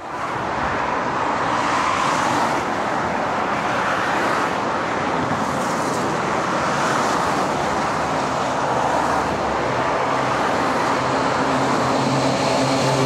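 Road traffic passing, the tyre noise of cars swelling and fading as each goes by. From about ten seconds in, the steady diesel engine note of an Oshkosh 1070F heavy equipment transporter grows louder as the truck approaches.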